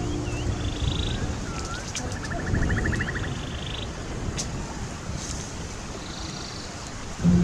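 Outdoor ambience: wind rumbling on the microphone with a few faint clicks. Twice, a bird gives a short swooping note followed by a buzzy trill.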